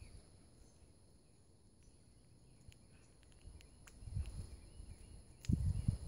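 Outdoor feeder ambience: a steady high insect drone with scattered short ticks and faint chirps. Gusts of wind rumble on the microphone about four seconds in and again, louder, near the end.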